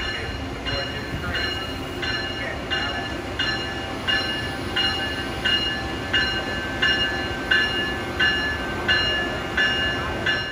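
A train's warning bell ringing steadily, about one and a half strikes a second, over the low rumble of a train moving through the station.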